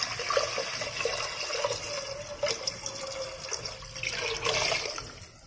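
Water pouring in a steady stream from a glass jug into a hot pot of ghee-fried whole spices and herbs. The pour fades and stops at the very end.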